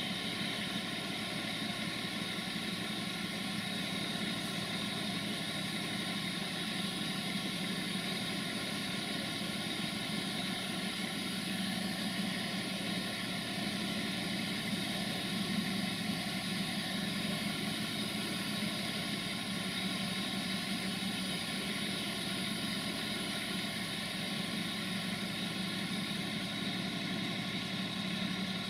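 A train's engine idling steadily, a constant low hum that does not change.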